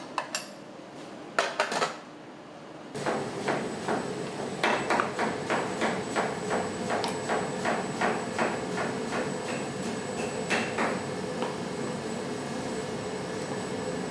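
Kitchen work: a few sharp clinks, then from about three seconds in a steady hum of kitchen equipment with quick, even knocking over it, about three knocks a second, that fades out near the end.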